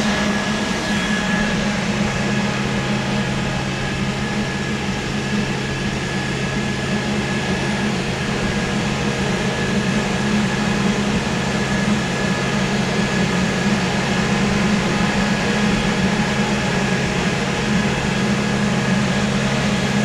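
80-inch bug vacuum running: a steady machine hum with an even rushing-air noise from its suction.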